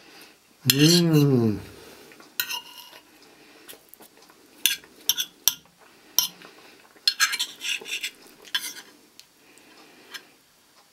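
Fork and knife clinking and tapping on a plate in scattered clicks while someone eats, with a short hummed voice sound about a second in.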